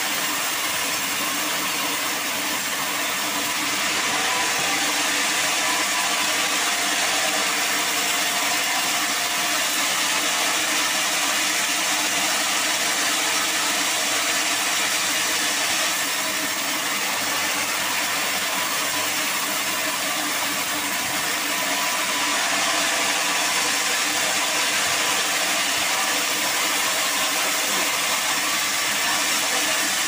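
Band sawmill running steadily as its blade cuts lengthwise through a large log: a continuous hiss over a steady machine hum.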